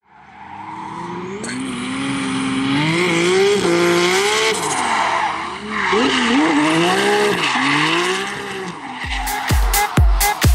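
A drift car's engine revving up and down under throttle while its tyres skid and squeal, fading in from silence. About nine seconds in, music with a heavy thumping beat comes in.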